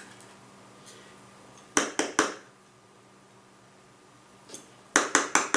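Hermaphrodite calipers working on steel during layout: two quick runs of three short, sharp metal strokes, about three seconds apart.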